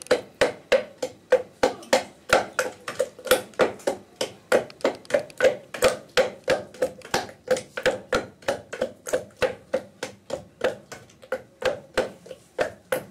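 Wooden pestle pounding a wet mash of tomato and green vegetables in a mortar: a steady rhythm of dull, knocking strokes, about three a second.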